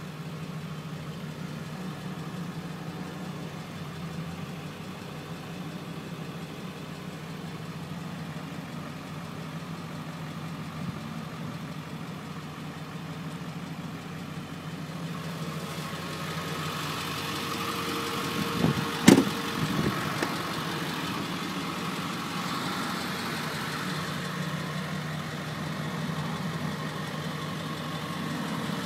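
7.3L Power Stroke turbo-diesel V8 idling steadily, heard from inside the cabin, with a single sharp knock about two-thirds of the way through.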